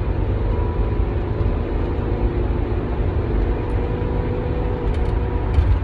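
Ford Edge driving: steady engine and road rumble with a faint hum.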